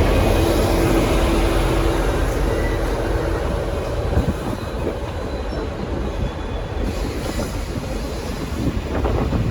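Departing passenger train rolling past: a steady rumble of steel wheels on rail with a few clicks over the joints, slowly fading as it pulls away.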